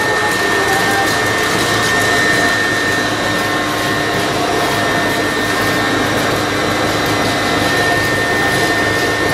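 Motor-driven flywheel rig spinning a generator's alternator, running with a steady whirring noise and a high whine.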